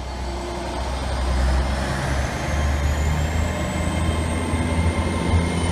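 A train's heavy low rumble, with a thin high whine rising slowly in pitch over a few seconds.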